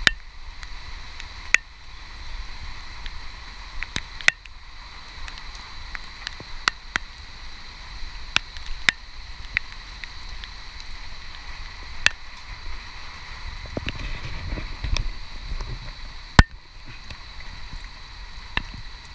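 Steady rain hiss in the surrounding foliage, with scattered sharp taps throughout and one louder knock near the end.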